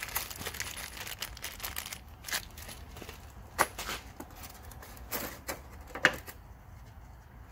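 Screws rattling and clicking inside a small plastic bag as it is shaken close to the microphone, with the plastic crinkling. Later come a few sharper single clicks and rustles, the loudest about six seconds in as the plastic window-shade frame is lifted out of its foam packing.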